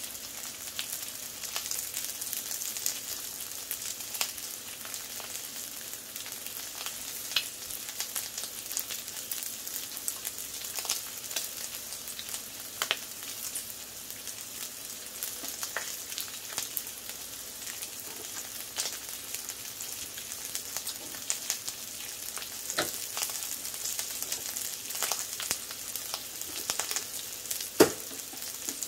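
Bacon strips frying on the steel cooktop of a Blackstone 22-inch tabletop griddle over low heat: a steady sizzling hiss with frequent small crackles and pops of spitting fat. One louder pop comes near the end.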